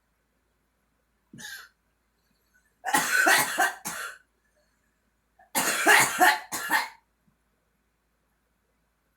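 A girl coughing: a short, fainter cough about a second in, then two loud fits of several rapid coughs each, about two and a half seconds apart.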